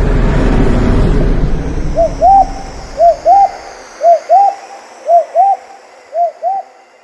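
An owl hooting: five two-note hoots about a second apart. A loud rushing noise fades out over the first few seconds, and a faint high wavering hiss runs beneath.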